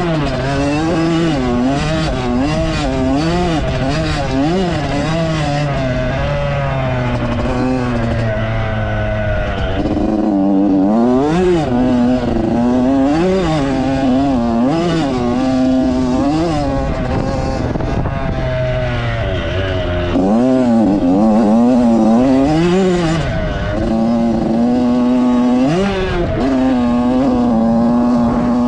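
Yamaha YZ85's two-stroke single-cylinder engine being ridden hard, its pitch rising and falling every second or two as the throttle is opened and shut and the gears shifted, with a couple of brief spells of steady held revs.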